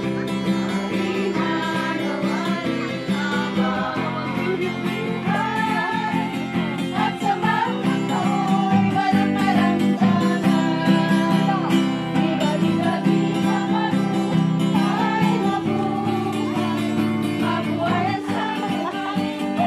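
Women singing a traditional putong (crowning) song together, accompanied by an acoustic guitar.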